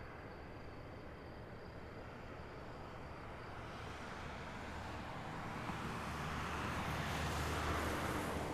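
A steady low rumble, with a passing vehicle's noise swelling from about three seconds in to a peak near the end, then starting to fade.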